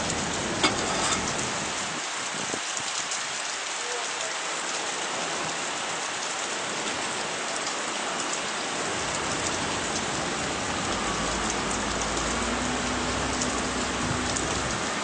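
Steady rain hiss with scattered sharp ticks of drops landing close by. About eleven seconds in, a low engine hum joins it as the boat's outboard motor gets under way.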